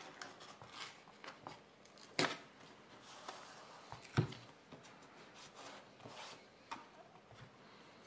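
Quiet handling sounds as hands press and rub painter's tape down onto printed circuit boards, with a few soft knocks, the clearest about four seconds in.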